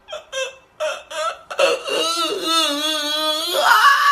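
A man crying loudly: a few short sobs, then a long, quavering wail about two seconds in.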